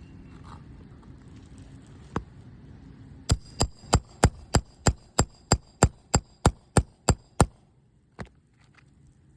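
Roofing hammer striking a steel nail-removal tool to drive it under the shingle nails: one blow, then a quick run of about fourteen ringing metal-on-metal blows at about three a second, then one last blow.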